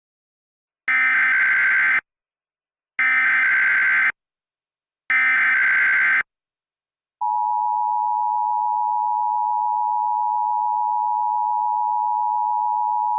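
Emergency Alert System SAME header: three warbling digital data bursts, each about a second long and two seconds apart. About seven seconds in comes a long, steady attention tone, the signal that a new warning broadcast follows.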